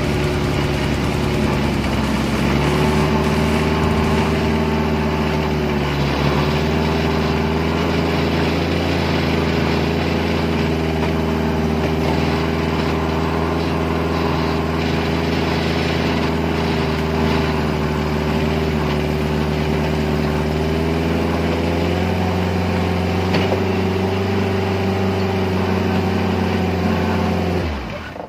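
Suzuki Jimny's engine running steadily under load as it drives a power take-off winch that drags a huge tree log toward the vehicle. The engine note shifts slightly a couple of seconds in and again about 22 seconds in, then cuts off abruptly near the end.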